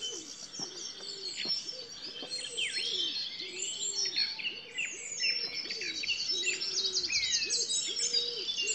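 Dense dawn chorus: many songbirds sing at once in the trees, their chirps, trills and whistles overlapping. A low coo repeats steadily underneath, about one and a half times a second.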